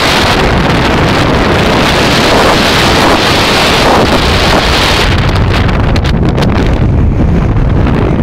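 Strong wind blowing across the microphone: a loud, steady rumble and hiss. The hiss thins out after about five seconds.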